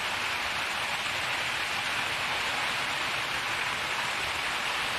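Steady hiss of falling water.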